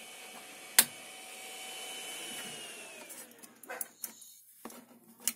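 Creality Ender 3 3D printer's cooling fans running with a steady whine. A single sharp click comes about a second in, and about two and a half seconds in the whine falls in pitch and dies away as the fans spin down. A few light knocks follow near the end.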